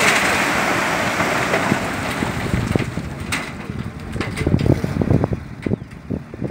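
Soil and stones pouring off the raised bed of a tipping dump truck: a loud rushing hiss that eases after about three seconds, over the truck's engine running. Uneven low thumps and knocks follow near the end.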